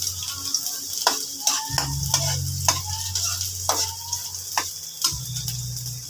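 Onions frying in hot oil in a frying pan: a steady sizzle, with a spatula clicking and scraping against the pan at irregular moments as they are stirred.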